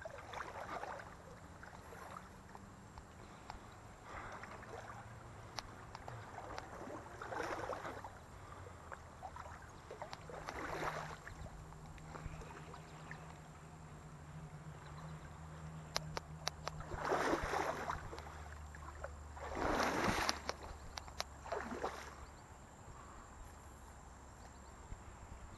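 Legs wading through a shallow creek: irregular sloshing surges of water every couple of seconds, strongest in two strides about two-thirds of the way through, with scattered small clicks and knocks between them.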